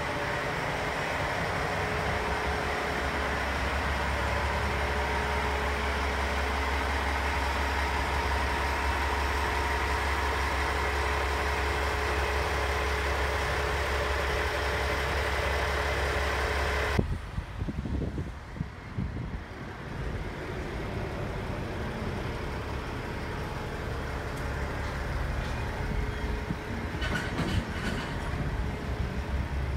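Diesel railcar engine idling with a steady hum. About halfway through the sound drops abruptly to a quieter, uneven rumble, with a few light clicks near the end.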